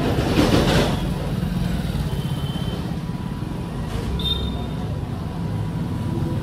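Low, steady rumble of a running motor vehicle engine, with a brief high tone about four seconds in.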